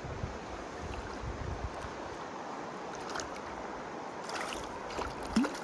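Steady rush of flowing river water, with wind buffeting the microphone. A brief sharp sound about five seconds in is the loudest moment.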